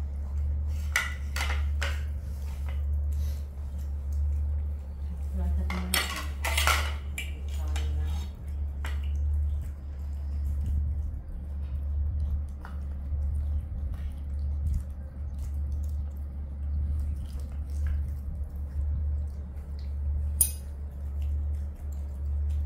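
Plates and cutlery clinking and clattering on a tiled floor as baby macaques eat and are fed from plates, with a busier patch of clatter about six seconds in, over a steady low hum.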